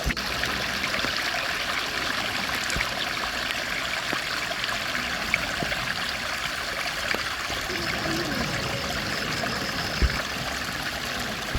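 Steady rush of a flowing stream, with a single low bump about ten seconds in.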